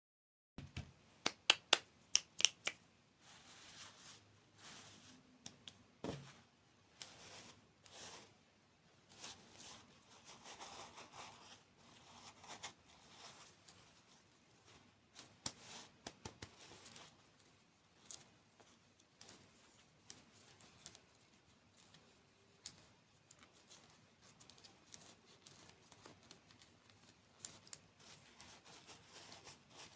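Close-miked ASMR handling sounds of candy and dessert: a quick run of sharp taps and clicks about a second in, then scattered clicks, crinkles and soft rustles.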